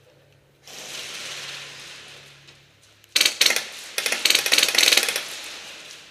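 PolarStar HPA airsoft rifle firing on full auto: a short burst of rapid shots about three seconds in, then a longer burst of about a second.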